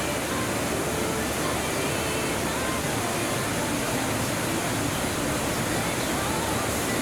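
Steady rushing of a mountain-stream waterfall: an even, unbroken roar of falling water.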